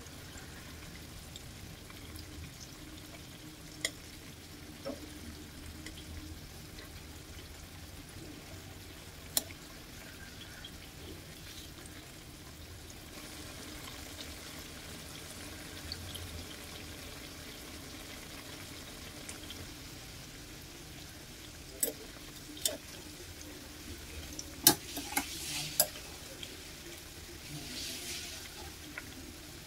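Breaded chicken nuggets frying in oil in a pan: a steady sizzle. Several sharp clicks of a metal utensil against the pan are bunched in the last third.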